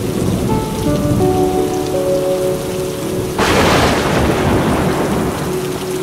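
Thunderstorm: thunder rumbling over steady rain, with a sudden sharp crack of thunder about three and a half seconds in, the loudest part, dying away over the next two seconds. Soft background music with held notes plays underneath.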